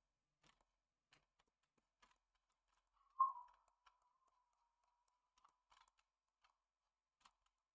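Near silence with faint, scattered computer keyboard clicks. About three seconds in comes one brief, louder sound that trails off into a faint steady tone lasting about two seconds.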